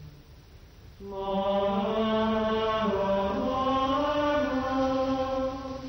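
Slow monophonic plainchant in the manner of Gregorian chant: a single sung line of long held notes that begins about a second in and steps up in pitch midway.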